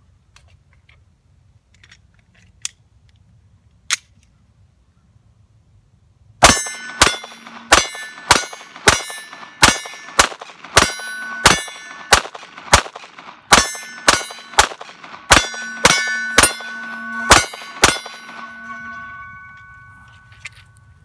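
9mm Glock pistol fired about twenty times in a steady, unbroken string, each shot followed by the ring of a steel silhouette target being hit. The ringing carries on for a couple of seconds after the last shot. A couple of faint clicks come a few seconds before the string starts.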